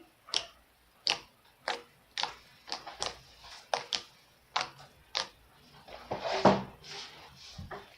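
Butter slime made with EVA foam clay being pressed and folded by hand, giving a string of sharp clicks and pops of trapped air, about one or two a second, with a longer squelch about six seconds in.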